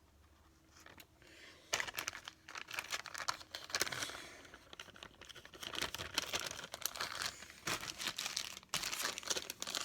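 A plastic soft-bait packet of Zoom Swamp Crawler worms crinkling as it is handled. Starting a little under two seconds in, it comes as a long run of irregular crackly bursts.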